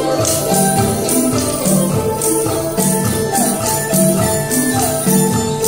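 Traditional Vietnamese music accompanying a water puppet show: drum strokes and a jingling, cymbal-like shimmer keep a steady beat of about two a second under a melody.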